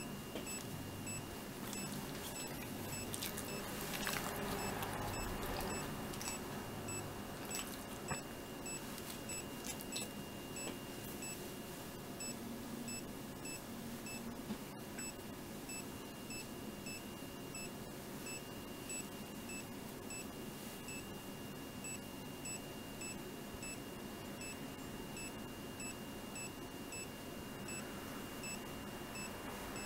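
SAN-EI handheld ECG monitor beeping with each detected heartbeat: short high-pitched beeps at a regular pace over a faint steady hum. There is some rustling about four seconds in.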